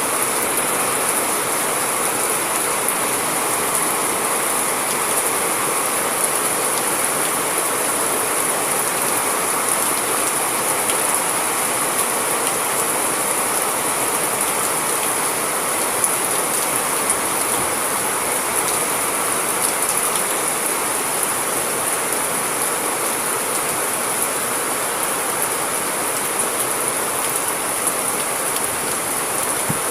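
Steady rain: an even, unbroken hiss with faint scattered drop ticks.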